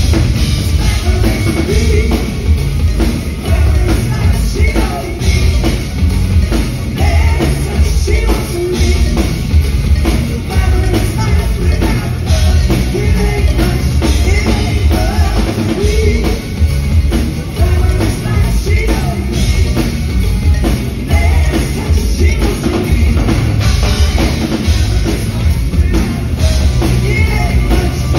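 Live band music, loud, with a woman singing over drums and timbales and a heavy bass beat, heard from the audience.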